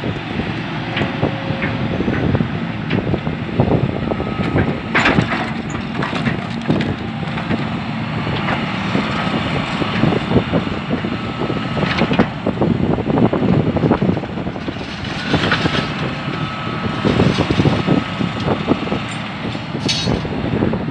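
Hydraulic excavator's diesel engine running under load as its scrap grapple grabs and swings tangled scrap steel and wire, with repeated clanks, crunches and scraping of metal throughout.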